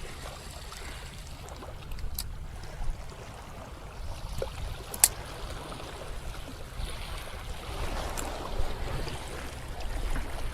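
Sea waves washing against a rocky shore over a steady low rumble, with a few sharp clicks, the loudest about five seconds in.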